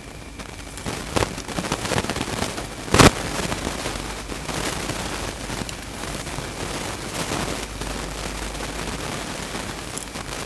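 Crackling, rustling handling noise with many scattered clicks and one loud knock about three seconds in.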